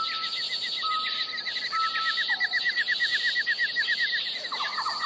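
A chorus of birds and insects: a fast repeated chirp at about eight a second throughout, three short level whistled notes and a falling note in the first half, and a rapid lower trill starting near the end.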